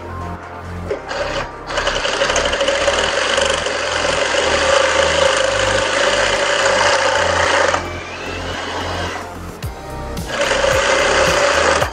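Industrial single-needle lockstitch sewing machine running at speed in a steady burst of about six seconds, stopping, then running again near the end. It is stitching a folded seam edge flat on cotton bag fabric.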